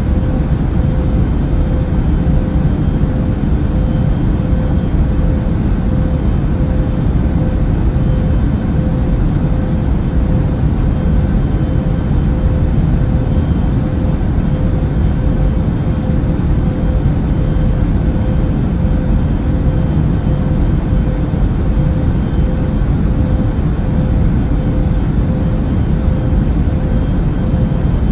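Steady in-flight cabin noise of an Airbus A380 airliner: a dense, low noise of engines and airflow with a steady hum-like tone running through it, unchanging throughout.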